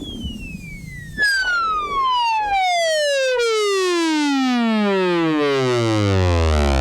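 Arturia MiniFreak synthesizer sound sweeping steadily down in pitch, from a bright high tone to a deep bass over several seconds. A second, louder falling layer comes in about a second in, and the sound grows thicker toward the end.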